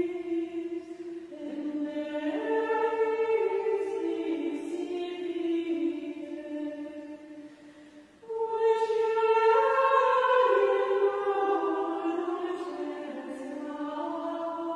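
Choir of Benedictine nuns singing Gregorian chant in unison: a slow melody moving up and down by steps, with a short breath pause about eight seconds in before a new phrase begins.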